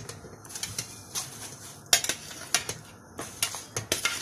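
Kitchen utensils and cookware clinking and clattering: a run of sharp metallic clinks and knocks, the loudest about two seconds in.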